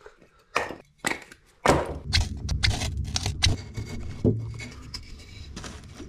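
Split firewood knocking as it is handled, a few sharp knocks. Then a low rumble of wind on the microphone, with many quick snaps and clicks of dry twigs and kindling as a small fire is lit.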